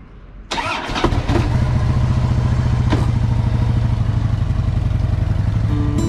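Harley-Davidson FXDL Dyna Low Rider's V-twin engine being started. A brief burst of cranking about half a second in, then the engine catches about a second in and settles into a steady idle with even, rapid pulses.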